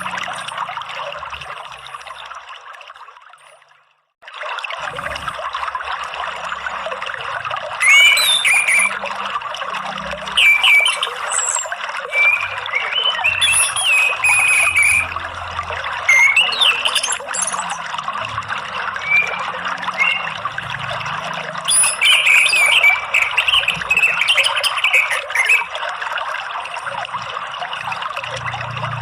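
Running water flowing steadily, fading out to silence about four seconds in and then starting again. From about eight seconds on, an orange-headed thrush sings over it in bursts of short whistled phrases and high chirps, a lure song played to get caged thrushes singing.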